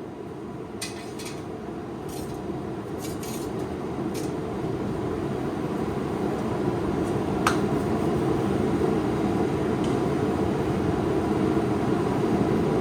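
Blacksmith's forge running with a steady roar that grows louder, with a few light metallic clinks of tongs and steel in the first few seconds and one more about seven and a half seconds in.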